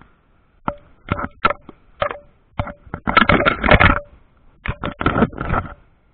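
Irregular knocks and scraping from handling a fishing rod, picked up by an action camera mounted on the rod right beside the spinning reel; the sounds come in clusters, busiest a little past the middle.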